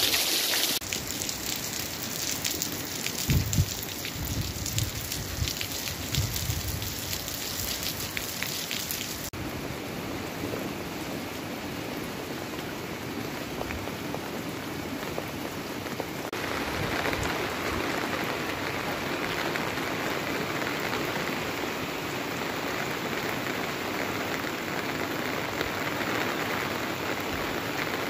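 Heavy rain falling steadily, pattering on paving and water surfaces, with water running off a roof edge. A few low thumps about three seconds in.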